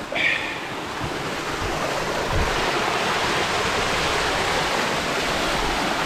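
Water rushing steadily down a small waterfall in a mountain creek.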